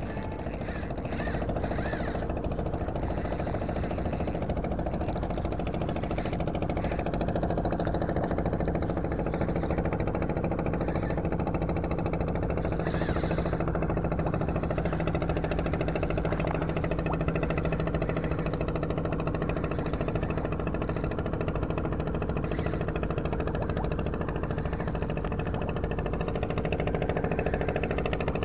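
An engine running steadily, a continuous low drone with a fixed hum that holds unchanged throughout.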